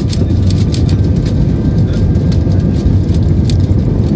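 Airbus A320 cabin noise during the takeoff roll: a loud, steady engine and rolling rumble, with frequent short knocks and rattles from the runway.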